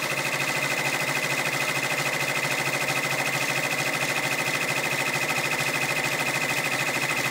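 Brother PR655 six-needle embroidery machine stitching at speed: a steady, rapid, even rhythm of needle strokes.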